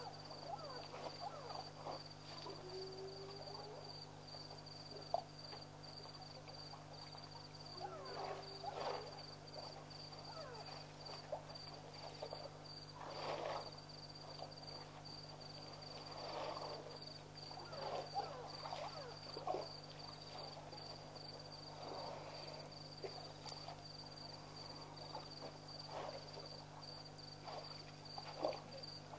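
Faint night waterhole sounds: a steady high insect trill over a low hum. Elephants drinking with their trunks make irregular splashes and sloshes of water, with scattered clicks. A few short, low, rising calls come in the first several seconds.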